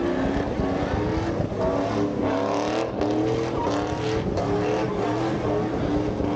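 Pickup truck engine held at high revs through a smoky burnout and donuts, its pitch climbing and dipping again and again over the hiss and squeal of spinning tyres.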